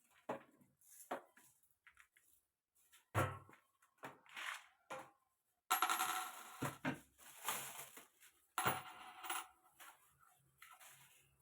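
Hard containers and shelf parts clinking and knocking as a refrigerator section is emptied by hand, a string of separate clinks with a longer, busier stretch of clatter in the middle.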